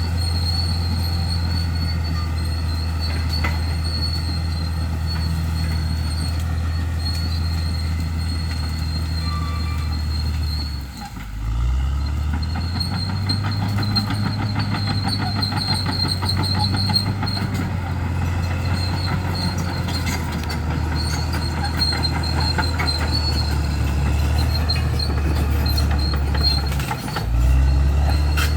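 Bulldozer's diesel engine running steadily under load, with a steady high-pitched whine above it. The engine note dips briefly about a third of the way through and again near the end, each time climbing back up.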